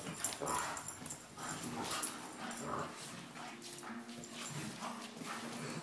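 German shepherd and bulldog play-fighting: repeated short play-growls, then a longer held growl in the second half, with paws scuffling on a wooden floor.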